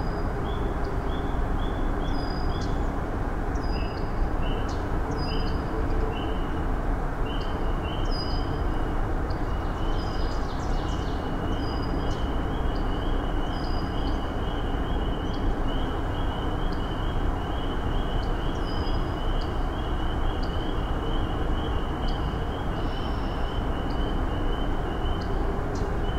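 Outdoor evening ambience: a steady low rumble with short high chirps repeating through it, sparse at first and coming about three a second from about halfway through.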